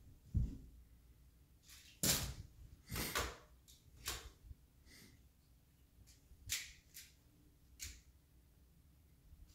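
Magna-Tiles magnetic building tiles clacking as they are set one by one onto a tall stack: about six sharp clacks spread over several seconds, after a low thump about half a second in.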